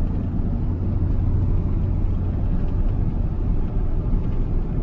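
Steady low rumble of a car driving at road speed, heard from inside the cabin: engine and tyre noise with no breaks or changes.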